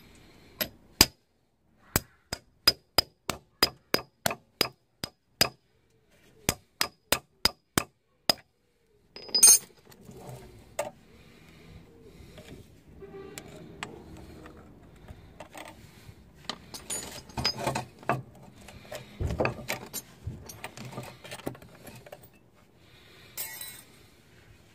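Screwdriver working the metal band clamps of a CV joint boot: a run of sharp, ringing metal clicks, about three a second, for the first eight seconds. A louder clank follows about nine seconds in, then scraping and handling of the clamp and boot with scattered clicks.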